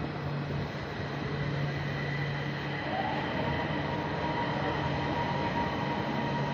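Rubber-tyred driverless people-mover train running past close by on its concrete guideway: a steady tyre and running noise with a low hum, and an electric motor whine that rises in pitch about three seconds in and then holds steady.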